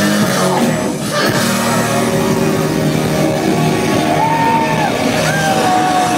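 Live rock band playing loud, with a singer shouting and singing into a microphone over electric guitar; sliding high notes stand out in the second half.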